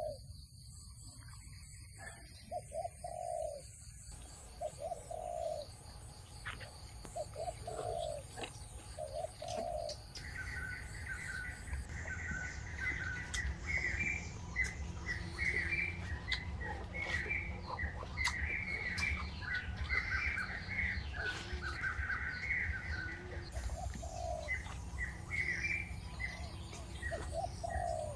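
Doves cooing in repeated low notes, joined after about ten seconds by other birds chirping busily, over a steady low rumble.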